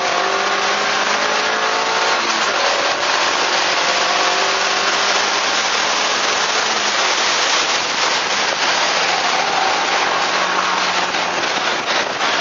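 Car engine pulling hard under acceleration. Its pitch climbs, drops at a gear change about two seconds in, then climbs again. A heavy rush of wind and road noise on the microphone runs underneath.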